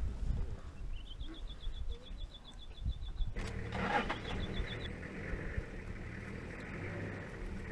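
Low steady rumble of an idling safari vehicle's engine. Over it comes a rapid run of short high chirps, about eight a second, which breaks off abruptly about three seconds in, followed by a shorter run a second later.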